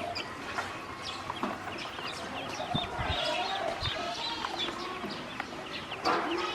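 Ducklings peeping, a steady stream of many short, high chirps overlapping, with some lower calls among them. There are two low thumps about three and four seconds in.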